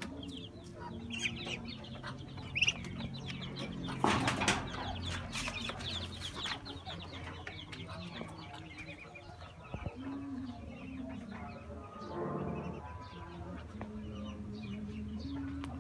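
Muscovy ducks and other poultry in a farmyard pen: many short high chirping calls throughout, a burst of loud scuffling or wing-flapping noises about four to six seconds in, and a short call about twelve seconds in.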